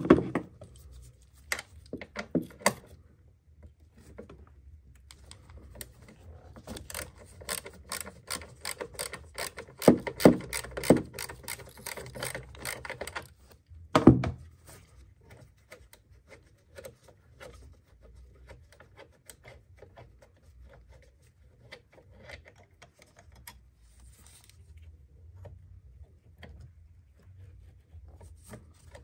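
Clicks, knocks and rubbing of gloved hands and tools working on a diesel car's fuel filter housing. About a third of the way in comes a run of rapid, evenly spaced clicks lasting several seconds, followed by a single louder knock, then lighter clicks.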